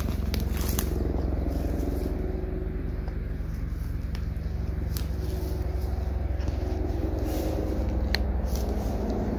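A steady low motor hum with an unchanging pitch, like an idling engine, runs throughout. Over it come a few sharp clicks and rustles, the last just after 8 seconds as the hammock's fabric is grabbed.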